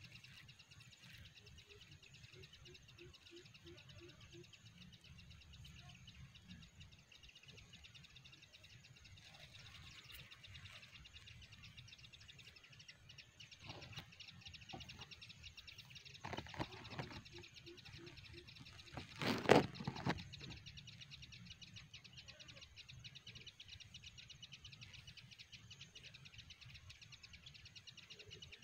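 Outdoor rural ambience: a steady, high, finely pulsing chirr with a low rumble beneath it. A short run of even low pulses sounds a few seconds in and again later, and a brief louder sound stands out about two-thirds of the way through.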